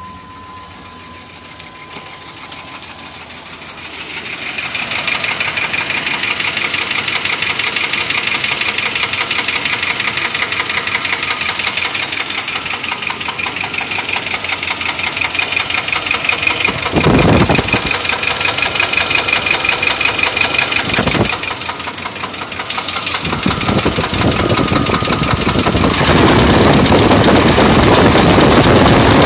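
1995 Chevy Silverado's 5.7L (350) V8 running with a rapid, steady knock, getting louder about four seconds in and again near the end. The owner suspects possible bearing damage, such as a spun rod bearing.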